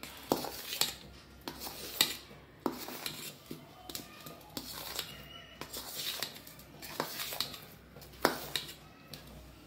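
Kitchen knife cutting steamed egg into cubes in a stainless steel bowl, its blade tapping and scraping on the bowl's metal bottom in scattered sharp clicks.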